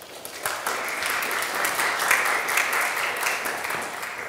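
Audience applauding, a steady patter of many hands clapping that dies away near the end.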